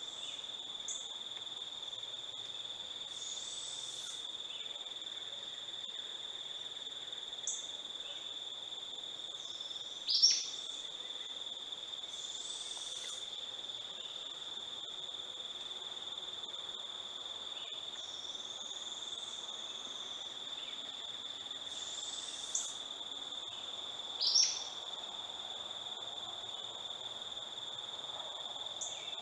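Steady high-pitched insect drone throughout, with a young barred owl's raspy begging hisses every several seconds. Two short, sharp, louder calls stand out, about ten seconds in and again about twenty-four seconds in.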